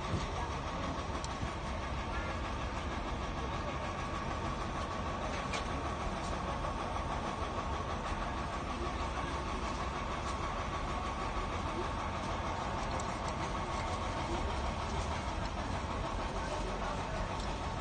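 Steady shop background hum, with a few faint clicks of plastic hangers as clothes on a rack are pushed along by hand.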